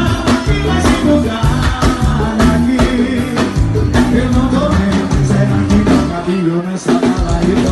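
Live forró band music played loud through a PA, with a male lead singer over a steady beat and bass line; the bass drops out briefly near the end.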